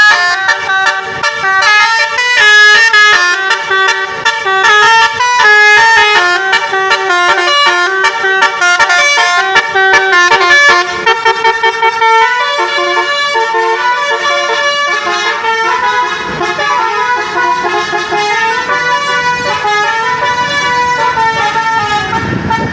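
Bus 'telolet' multi-tone musical horn playing a quick stepping melody of loud horn notes. About halfway through it changes to a somewhat softer tune.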